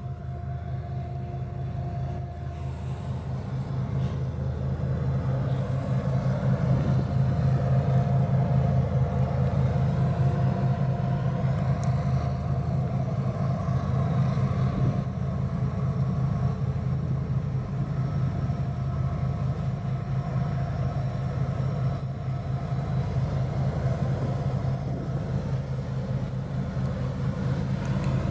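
BNSF diesel locomotives hauling a loaded coal train, their engines giving a deep steady drone that grows louder over the first several seconds as the train approaches, then holds.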